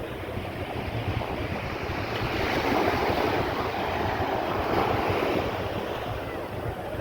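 Sea waves breaking and washing onto the shore, with wind buffeting the microphone; the surf swells louder a couple of seconds in and eases off again near the end.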